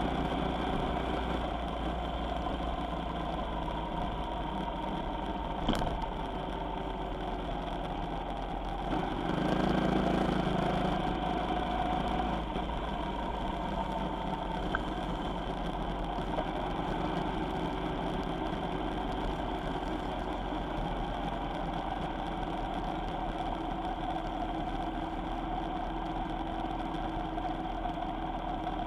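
Vehicle engine running steadily while on the road, with a short click about six seconds in and a brief louder swell around ten seconds in.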